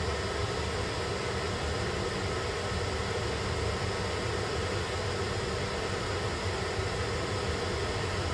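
Steady fan-like hum and hiss, with no other sound standing out.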